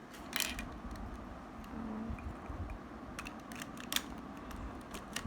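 Plastic pieces of a 3x3 Rubik's cube clicking and snapping as an edge piece is fitted back into the partly reassembled cube: a handful of sharp clicks, a cluster about half a second in and more around three to four seconds, the loudest near four seconds.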